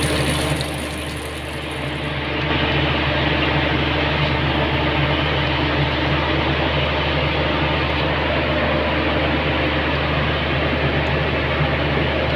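Steady drone of palm oil mill machinery running, electric motors and pumps, with a constant low hum under a noisy rush. The level dips briefly about a second in and comes back up about two seconds in.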